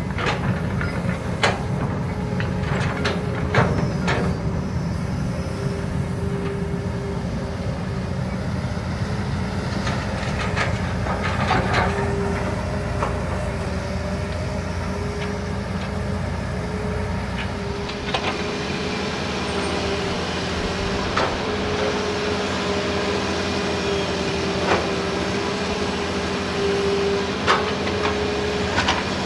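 Hitachi and Kobelco hydraulic excavators digging: diesel engines running under load with a steady whine over the rumble, and scattered sharp clanks and knocks from the buckets and machines. About eighteen seconds in the deep rumble thins and a higher hiss takes over.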